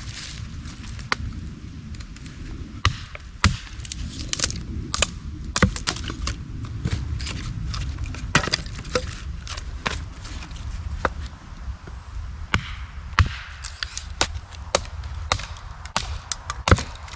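Wood being split into kindling: a run of irregular sharp knocks and cracks of a blade striking and splitting small pieces of wood, a couple each second, with a few much louder strikes about three and a half seconds in, about thirteen seconds in and near the end.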